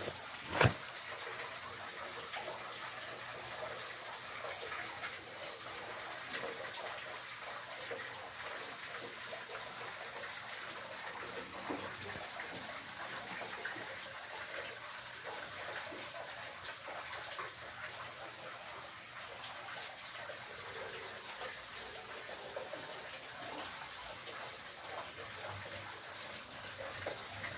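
Water moving and splashing steadily, a continuous rushing sound. A sharp click about half a second in.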